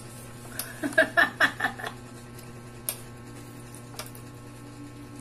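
A short burst of laughter about a second in, a quick run of voiced pulses, then two sharp clicks from the table over a steady low hum.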